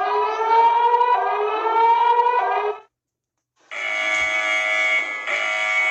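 Electronic emergency alert alarm tones: a stack of tones rising in pitch that cuts off about three seconds in, then after a short gap a steady, harsh multi-tone alarm starts.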